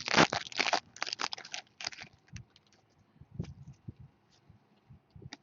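Hockey trading cards and pack wrappers being handled: about two seconds of rustling, sliding and crinkling, then scattered light taps and clicks.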